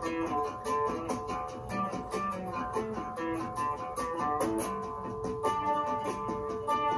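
Background music: the instrumental intro of a song, with a guitar picking a repeating run of notes before the vocals come in.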